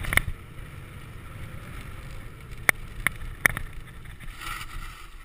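Mountain bike running down a dirt trail: a steady rumble of wind on the microphone and tyres on dirt, with a handful of sharp clacks as the bike jolts over bumps, two near the start and three a little past halfway.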